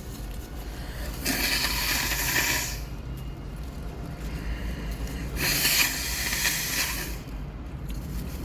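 A person breathing out hard through the mouth twice, each a long breathy hiss of about a second and a half, about four seconds apart, over a steady low hum.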